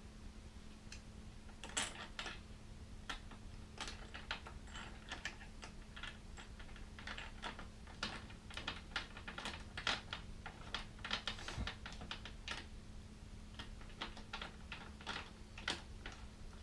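Irregular light clicks and ticks of a hand tool working the bolts on a motorcycle pannier mount, a few a second with short flurries. A faint steady hum runs underneath.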